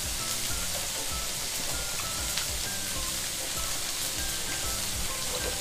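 Thick hanwoo beef steak sizzling on a hot grill pan: a steady hiss.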